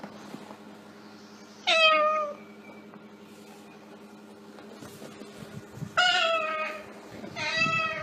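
Three short meows, each sliding down in pitch: one about two seconds in, and two more close together near the end.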